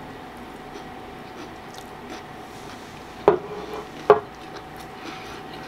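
Faint closed-mouth chewing of a soft taco, then two sharp knocks of a plate being set down, a little over three and four seconds in.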